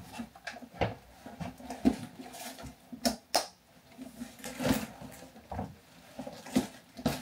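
Handling noise of a large handbag being put on the shoulder and opened: scattered light clicks and taps, with soft rustling from the bag and its strap between them.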